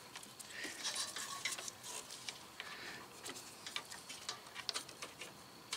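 Faint rustling and scattered light clicks of gloved hands handling hoses and plastic fittings at the front of a car.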